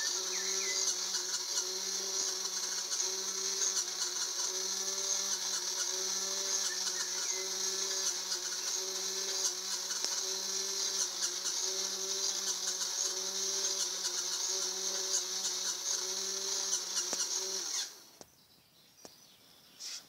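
Small electric motor of a homemade plastic-owl bird scarer whirring steadily with a regular pulse as it swings the feathered stick arms. It cuts off suddenly near the end.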